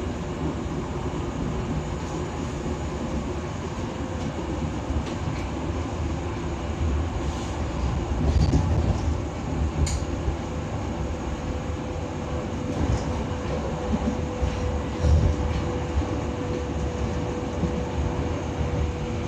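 Running noise inside a Berlin U-Bahn F79 subway car in motion: a steady rumble of wheels on the track, with a thin steady hum setting in about four seconds in and louder swells of rumbling about eight and fifteen seconds in.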